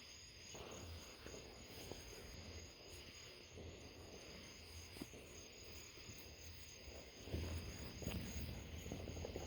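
Crickets trilling steadily at a high pitch, faint, with a few soft pops and some low rustling from about seven seconds in.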